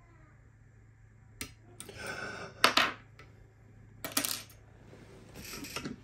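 Small steel lock-picking tools, a pick and a tension wrench, clinking and clattering as they are put down on a wooden desk. There are several sharp metallic knocks, the loudest about two and a half seconds in and another about four seconds in.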